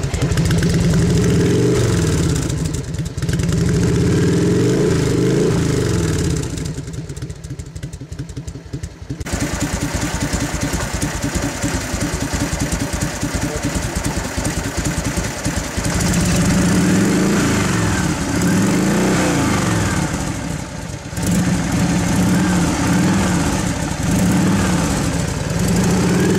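Harley-Davidson Road King V-twin engine running through Supertrapp aftermarket mufflers. It is revved several times, settles to a steady idle for several seconds in the middle, then is revved in repeated throttle blips again.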